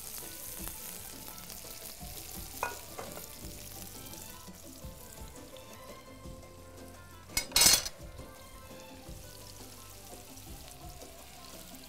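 Onions frying in hot oil in a frying pan: a steady sizzle, with a few light clicks and one short, loud burst of noise about two-thirds of the way in.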